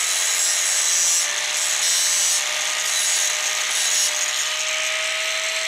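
Angle grinder grinding down a tack weld on a steel pipe coupon, feathering the tack's end thin so the root pass can tie into it. A steady motor whine runs under a hiss that swells and eases several times as the disc bears on the metal.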